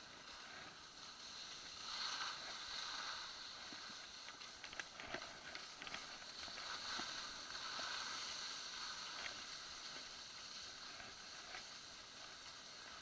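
Skis sliding over packed snow: a steady hiss of the bases and edges scraping along the slope, with scattered small clicks and scrapes, most of them about five seconds in.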